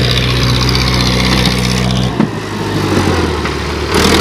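Digitrac PP51i tractor's diesel engine running under load, pulling a loaded trolley. The steady low engine note shifts abruptly about halfway through and again near the end.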